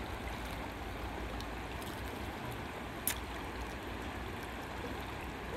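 River water running steadily, an even wash of flowing-water noise, with one sharp click about three seconds in.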